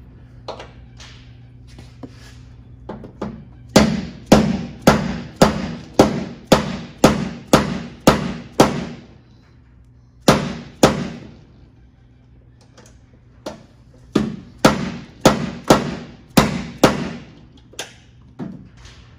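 Rubber mallet blows, about two a second, in three runs with pauses between: tapping an MMD gas hood strut's socket end onto its ball stud, a fit that is hard to start.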